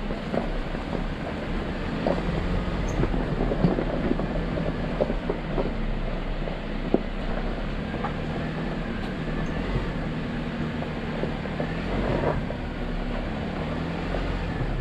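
Jeep Wrangler JL driving slowly over a rocky dirt trail: a steady low engine hum under light load, with tyres on gravel and scattered knocks and clicks from stones and the suspension.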